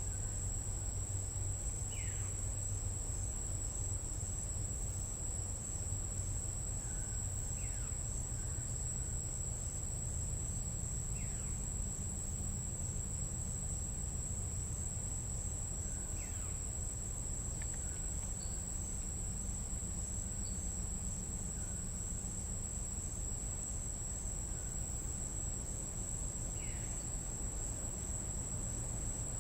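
Tropical jungle night insects keeping up a steady high-pitched drone, with a short falling call from an unidentified animal every few seconds, over a low steady rumble.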